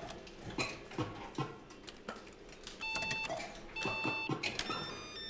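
Fruit machine: clicks and knocks of button presses, then two electronic beeps about three and four seconds in, and near the end a short tune of electronic tones starting up.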